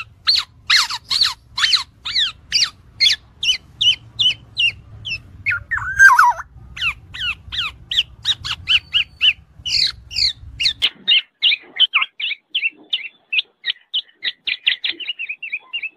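Black-naped oriole (kepodang) giving a noisy run of harsh, downward-sweeping calls, about three a second, with one lower, louder call about six seconds in. After about eleven seconds the calls come faster and a low background hum stops.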